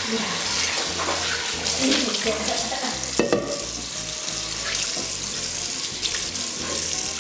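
Steady rushing, water-like noise, with one sharp click about three seconds in.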